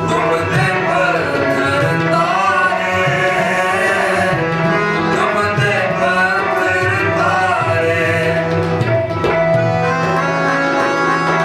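Shabad kirtan: voices singing a hymn over a held harmonium drone, accompanied by tabla.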